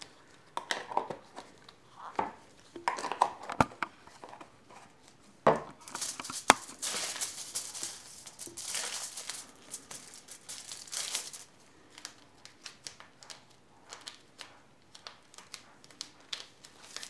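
Nitrile gloves being stretched and pulled on, with latex-like rubbing and rustling and the shiny plastic sheet underneath crinkling, plus a few sharp snaps. The rustling is densest through the middle and thins to light scattered ticks near the end.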